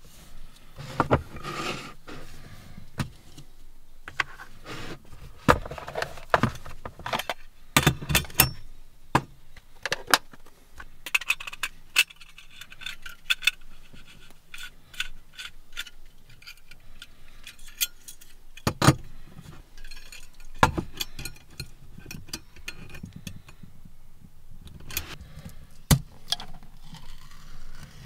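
Metal tins, a plastic case and a gas cartridge being handled and set down on a wooden box lid: a long string of knocks, clinks and light rattles, with a few sharp knocks standing out.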